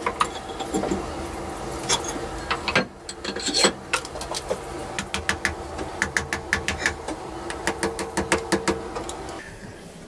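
Steel tools clinking and tapping against a diesel engine block while working at a cylinder liner, with a quick run of light metal taps, about four a second, in the second half. A steady mechanical hum runs underneath and cuts off shortly before the end.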